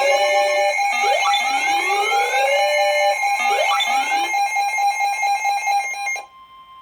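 Electronic alert siren: repeated rising sweeps over a steady, pulsing high tone, cutting off about six seconds in.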